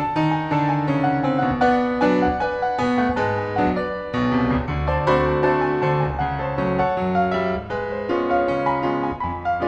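Solo piano playing a ragtime-flavoured Appalachian breakdown: a busy run of quick notes over a moving line of bass notes.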